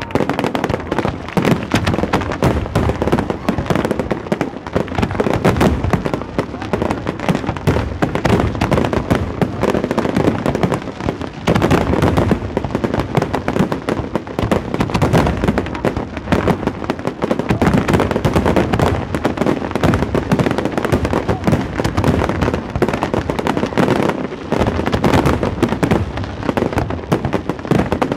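Fireworks display: aerial shells and fountains firing and bursting in a dense, continuous barrage of bangs and crackle, with two brief lulls.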